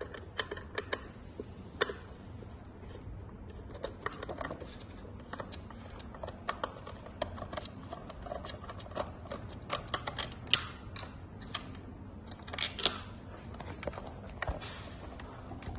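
Irregular small clicks, taps and rustles of hands and tools working on an e-bike's plastic controller box to open it, with two louder scraping rustles about ten and thirteen seconds in.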